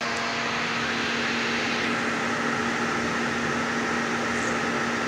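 Steady hum and whir of a running electric motor, with a constant pitch.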